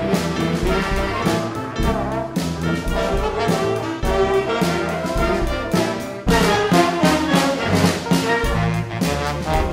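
Big band playing a funk-jazz tune: trumpets and trombones over bass and drums, with a steady beat. The full band comes in louder a little past six seconds in.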